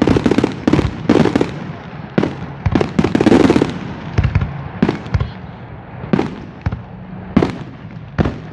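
Fireworks display: a string of sharp bangs from shells bursting overhead, irregularly spaced, with a longer crackling burst a few seconds in.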